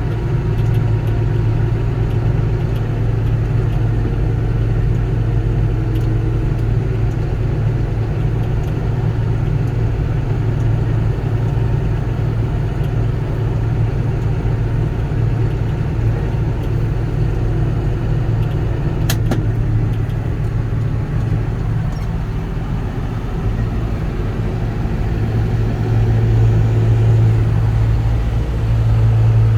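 Farm harvest machinery's engine running steadily with a deep, even drone, swelling a little near the end. One sharp click about 19 seconds in.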